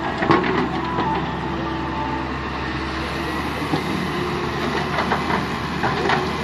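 Daewoo Solar 130W-2 wheeled excavator working, its diesel engine and hydraulics running steadily under load as it digs and lifts soil, with several sharp knocks from the bucket and arm.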